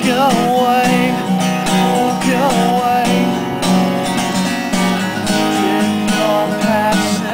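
Acoustic guitar strummed steadily, with a man's voice holding long, wavering notes of the melody over it.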